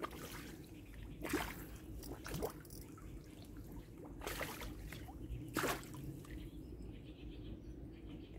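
Water splashing and dripping in a few short splashes as a large carp, still strong, struggles in the shallows against a hand gripping it.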